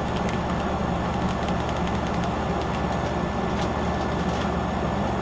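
Steady low hum of background noise, even throughout, with faint scattered light ticks.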